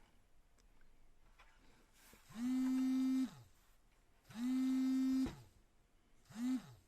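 A small electric motor whirs three times. Each run spins up to a steady whine and then winds down: the first two last about a second each, the last only half a second.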